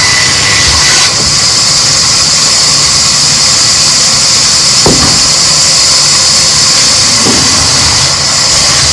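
A loud machine running steadily, its noise a constant hiss over a low rumble. Two short downward-sweeping sounds come about five and seven seconds in.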